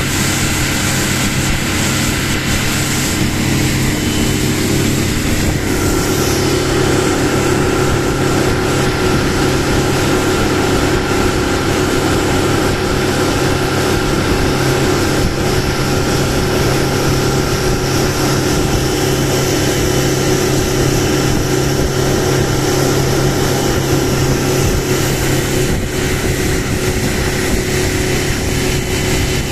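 Outboard motor on a small boat running steadily at speed, a constant engine drone over a rushing hiss. About six seconds in, the engine note grows fuller and stays there.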